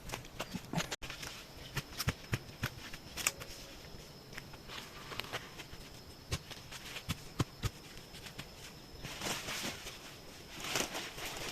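Irregular light knocks and clicks, scattered unevenly, with louder stretches of rustling about nine seconds in and again near the end, over a faint steady high tone.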